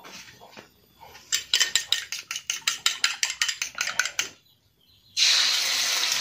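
A spoon beating egg in a ceramic bowl, clinking rapidly at about seven strokes a second for some three seconds. About five seconds in, a sudden steady sizzle starts as the beaten egg hits the hot wok and begins to fry.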